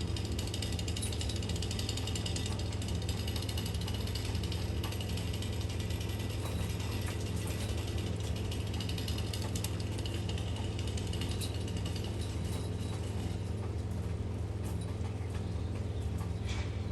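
Chainsaw running steadily at an even pitch while cutting a tree, with the hiss of heavy rain behind it.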